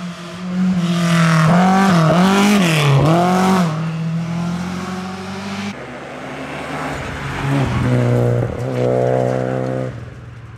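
Rally car engine at high revs through a tight corner, its pitch dipping and rising several times as the driver lifts, brakes and gets back on the throttle. After a cut about halfway through, a Renault Clio rally car approaches: its engine drops in pitch near the three-quarter mark and then holds a steady note through the hairpin before fading.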